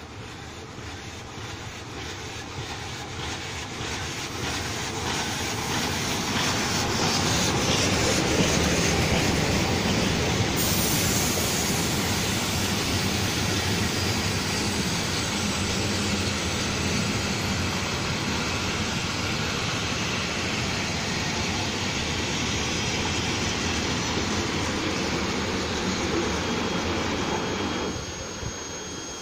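Historic train hauled by an FS Class 625 steam locomotive passing through a station: the rolling noise grows louder as the locomotive approaches, then the vintage passenger carriages run past on the rails with a steady rumble. Near the end the sound drops suddenly.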